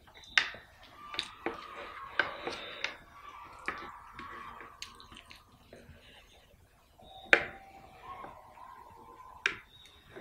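Close-up eating sounds as rice and mutton curry are mixed by hand on a plate and eaten: a string of sharp, wet clicks and squishes, loudest about half a second in and again about seven seconds in.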